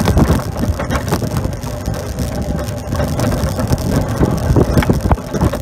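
Homemade wooden roller-coaster cart running along PVC-pipe rails: a steady rattling rumble with many short knocks throughout.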